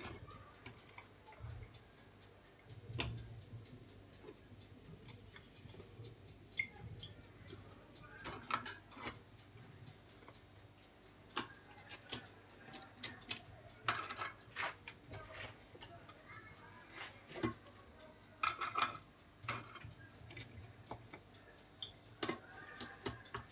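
Scattered light clicks and taps, a dozen or so at irregular intervals, as lemon-soaked ladyfinger biscuits are laid one by one into a glass baking dish.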